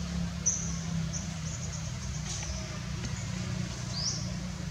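Birds chirping: short high notes through the first couple of seconds and one quick rising chirp about four seconds in, over a low steady rumble.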